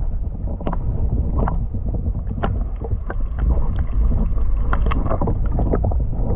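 Inflatable kayak on choppy water: irregular splashes and knocks of paddle and waves against the hull, over a steady low rumble of wind buffeting the microphone.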